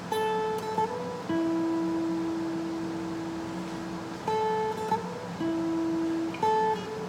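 Steel-string acoustic guitar playing single plucked notes: a note at the 10th fret of the B string slid up to the 12th, then a long-held note at the 9th fret of the G string (A, B, then E). The phrase starts again about four seconds in.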